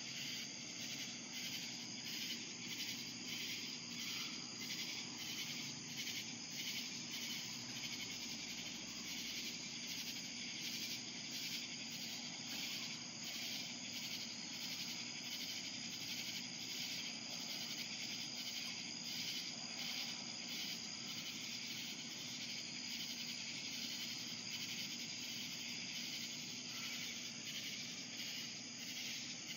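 Night insects chirping: a steady, high-pitched chorus with a regular pulse.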